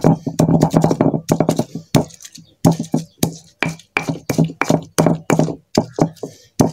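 Pestle pounding garlic, ginger and kencur in a mortar, about three knocks a second, mashing them into a smooth herbal paste.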